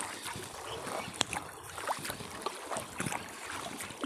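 Water sloshing and splashing irregularly around someone working in it, with wind rumbling on the microphone.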